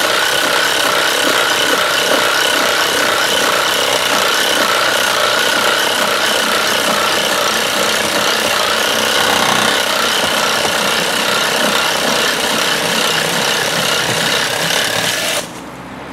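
Milwaukee M12 Fuel brushless Hackzall reciprocating saw with a Diablo carbide-tipped pruning blade cutting through a green rhododendron branch with a push-pull rocking stroke that clears chips from the blade; the motor's whine wavers slightly. It stops suddenly near the end as the saw is lifted out.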